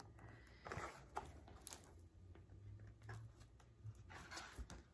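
Faint rustles and soft taps of a hardcover picture book being handled as its pages are turned, over near-silent room tone.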